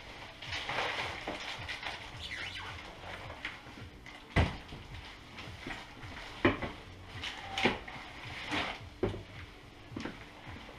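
Metal tools and bicycle parts being handled and knocked together while a bike is taken apart: rustling handling noise, then about six sharp clanks spread over the last six seconds, the loudest a little past four seconds in.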